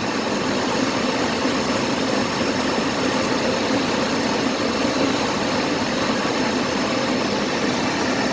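Car engine running steadily at idle, with a failing alternator that the owner believes has shorted out internally.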